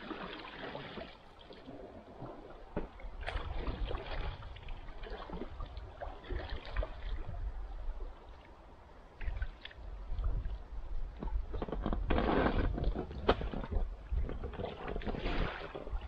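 Kayak paddle strokes: a double-bladed paddle dipping and pulling through lake water, with irregular splashes and swishes every couple of seconds over a low rumble.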